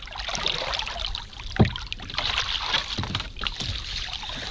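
Paddles working in shallow river water, with splashes and scrapes and a sharp knock about one and a half seconds in, followed by a couple of lighter knocks.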